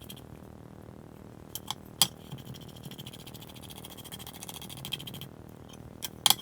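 Workshop handling noise: a few sharp clicks and light knocks, the loudest about two seconds in and two more close together near the end, over a faint steady high hiss.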